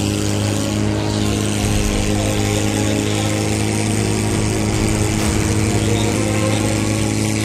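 Portable fire pump engine running steadily at high revs, pumping water from the tank out through the attack hoses.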